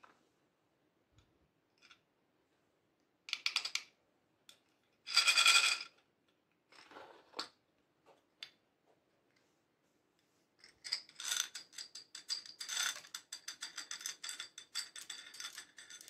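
Small plastic beads rattling in a clear plastic cup in a few short shakes, then tipped out into a glass dish as a long run of quick clicks and clatters through the last third.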